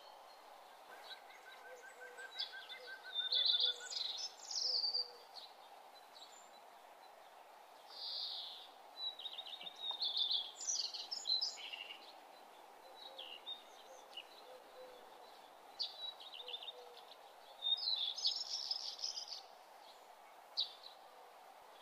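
Birds chirping in short runs of rapid high notes, again and again, over a faint steady hum, with a lower trill for a few seconds near the start.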